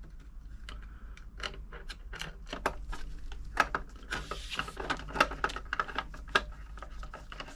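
Small screws and a hand screwdriver clicking and tapping irregularly, several times a second, against a sewing machine's plastic case as the screws are fitted, with a brief rasping scrape about four seconds in.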